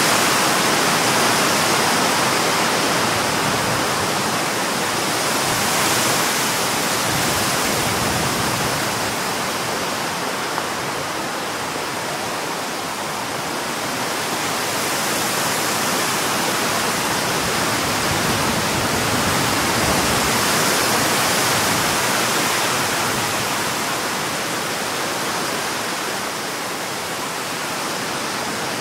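Strong storm wind blowing through trees: a steady rushing that swells and eases in slow gusts every several seconds.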